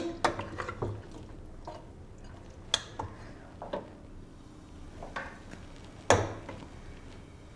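Cooking spoon knocking and scraping against a metal pot while stirring beef pieces in yogurt masala during the bhuna. Scattered separate clicks, the loudest about six seconds in.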